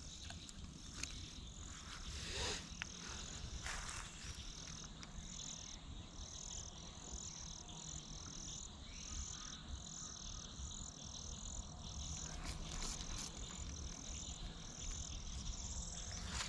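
Steady high-pitched chirping from a small calling animal, short pulses repeating about one and a half times a second, with a few faint clicks in the first few seconds.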